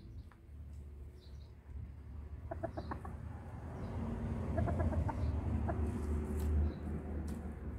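Rooster clucking: a run of short, quick clucks about two and a half seconds in and another a couple of seconds later, over a steady low rumble.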